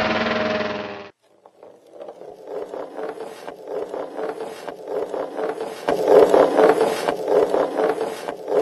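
A small engine on a homemade tracked mini-loader running steadily, cut off about a second in. Then a large wooden monowheel rolling on asphalt makes a continuous wooden rattling and clattering, louder from about the middle on.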